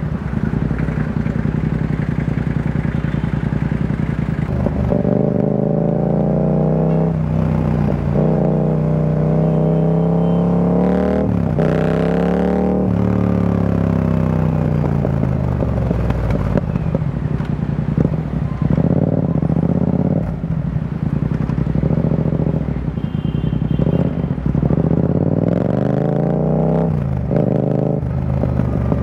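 Yamaha XSR700's 689 cc parallel-twin breathing through an Akrapovic carbon full-system exhaust with the dB killer removed, riding in traffic. The exhaust note climbs in pitch through each pull, drops at the gear changes and falls back when the throttle is eased, over and over.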